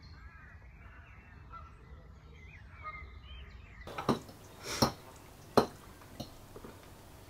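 Birds chirping and singing faintly outdoors. About four seconds in, that gives way to four or five sharp clinks and knocks of cutlery and dishes.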